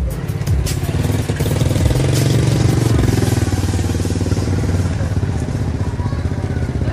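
Motorcycle engine running steadily at an even, low pitch.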